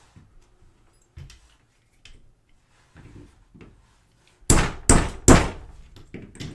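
Light clicks and taps of a small plastic camera lens housing being handled, then three loud sharp knocks in quick succession about two-thirds of the way in, followed by a few smaller taps, as the glued-in lens is worked at to separate it from the housing.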